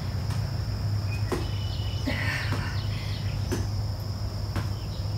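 Steady high-pitched insect drone over a constant low hum, with a few soft knocks and a short breathy rustle from a person exercising on a floor mat.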